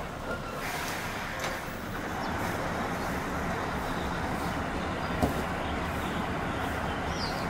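Rear-loader garbage truck's diesel engine running steadily, a little louder from about two seconds in. One sharp knock about five seconds in.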